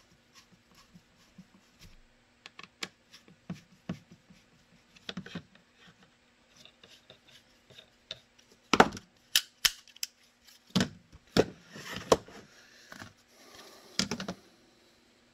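Small plastic clicks and scrapes as a hand screwdriver drives screws through a black plastic belt clip into a formed plastic magazine holder. From about nine seconds in come several sharp clacks of hard plastic parts and the screwdriver being handled and set down on the bench mat.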